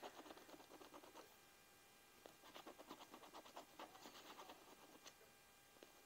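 Scratch-off lottery ticket being scratched: quick, faint rubbing strokes in two spells, with a pause of about a second between them.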